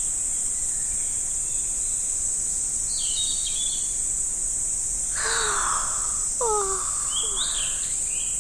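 Outdoor insect chorus: a steady high-pitched drone of insects, with scattered bird chirps about three seconds in and again near the end. A brief rushing sound about five seconds in, among a few lower gliding calls.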